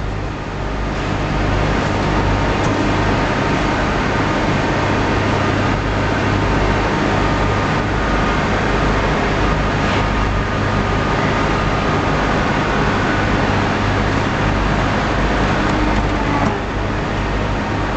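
Ambar vertical baler's hydraulic power pack running steadily: a low motor hum under a constant mechanical noise with a faint whine.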